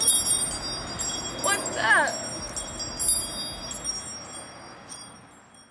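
Shimmering, wind-chime-like tinkling of a magic sound effect, many high ringing tones that start together and thin out and fade over about five seconds. A brief exclamation from a woman's voice, rising and falling in pitch, about two seconds in.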